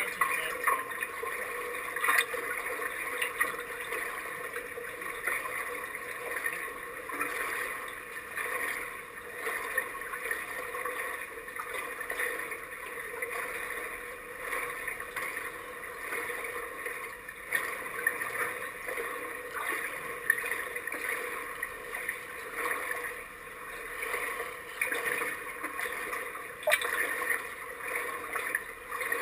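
Pool water lapping and sloshing at the surface, with small irregular splashes and clicks from kayaks rocking nearby, heard through a half-submerged camera housing.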